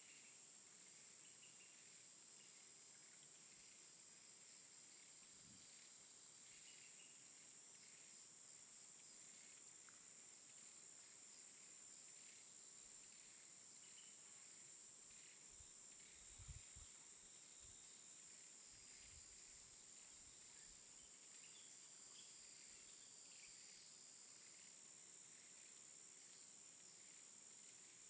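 Near silence: faint outdoor ambience with a steady, high-pitched insect drone. A few soft low thumps come just past halfway.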